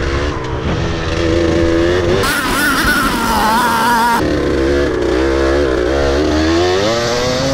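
Dirt bike engine under way, its revs climbing, dropping sharply about two and about four seconds in, then climbing again as the rider works the throttle.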